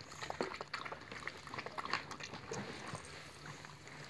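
Ferrets lapping milk from a plate: a quick, irregular run of small wet licks.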